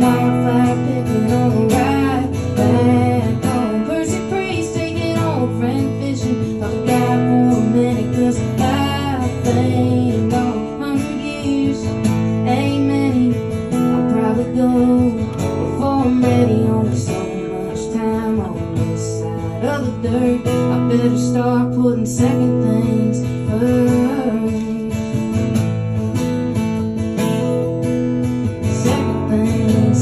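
Acoustic guitars strumming and picking an instrumental break in a country song, with a melodic line bending over the chords at times.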